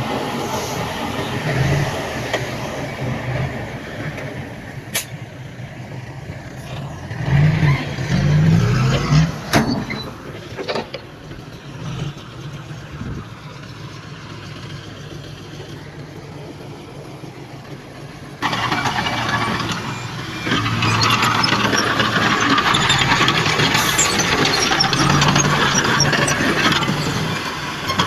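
Heavy earthmoving machinery working: diesel engines of bulldozers and dump trucks running, with a few sharp clicks and knocks. About two-thirds of the way through, the sound changes abruptly to a louder, denser engine noise.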